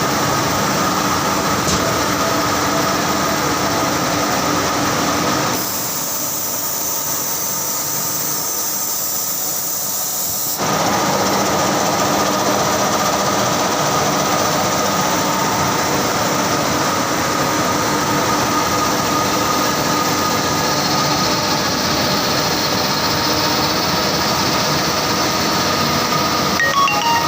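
Saurer JSC 330 carding machine running with a steady, dense mechanical noise and a constant hum. About six seconds in the sound turns thinner and hissier for about five seconds, then returns to the fuller noise.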